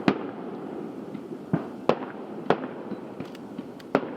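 Aerial fireworks exploding: about six sharp bangs at uneven intervals, the loudest just after the start and around two and four seconds in, with continuous crackle and echo between them.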